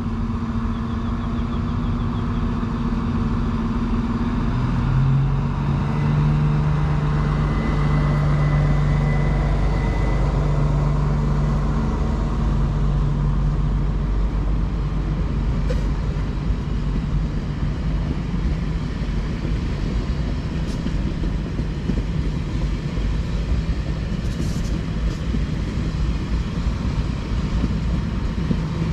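Queensland Rail Diesel Tilt Train passing: the power car's diesel engine hum drops in pitch about five seconds in as it goes by. It gives way to the steady rumble of the carriages rolling over the rails.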